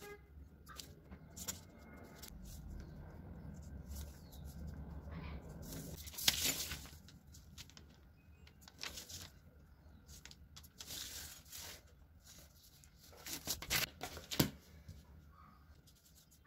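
Handling sounds of pattern drafting on kraft paper: paper rustling and a marker pen and rulers scraping and tapping on it. Scattered short clicks and scrapes are heard, the loudest about six seconds in and around fourteen seconds.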